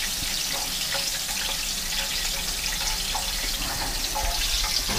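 Hot frying oil sizzling steadily in a skillet on the stove, with light scattered crackles.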